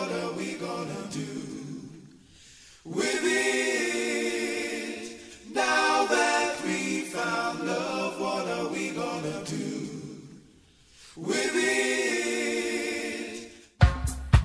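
Several voices singing in harmony without instruments, in long held phrases with short pauses between them. Near the end it cuts suddenly to a dance track with a strong bass beat.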